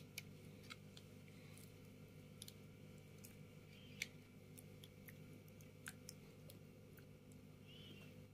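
Faint clicks and light taps of a plastic egg slicer and boiled egg being handled over a ceramic soup plate, one sharper click about four seconds in, over a steady low hum.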